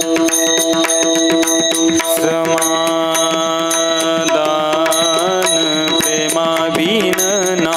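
Marathi devotional abhang music: a steady drone and constant pakhawaj drum strokes. From about two seconds in, a high voice holds long, wavering notes over them.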